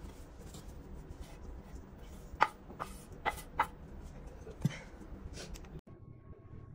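Chopped herbs being scraped off a wooden cutting board into a stainless steel mixing bowl, with about five sharp knocks and taps of the board and blade against the bowl in the middle.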